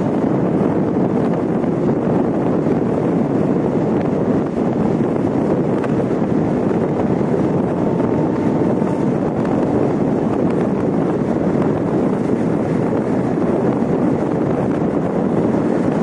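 Train running at speed: a steady rumble with wind buffeting the microphone.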